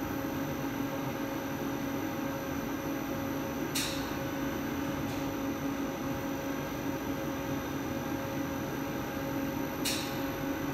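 Plastic extruder running steadily with a mechanical hum and high whine while a thin TPE strand comes out of its die. Two short hissing clicks, about six seconds apart, sound over it.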